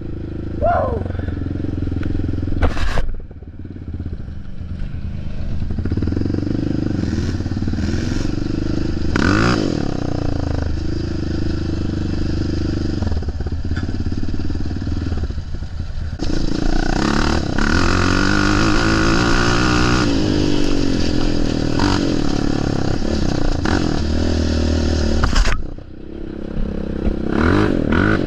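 Yamaha Raptor 700 ATV's single-cylinder four-stroke engine running through a Big Gun dual exhaust while ridden on a trail, revving up and down with the throttle. Scattered knocks and clatter come from the machine over rough ground. The throttle drops off sharply about three seconds in and again near the end.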